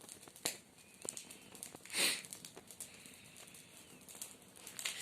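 Brushwood fire catching: scattered crackles and pops, with one louder burst of crackling about two seconds in.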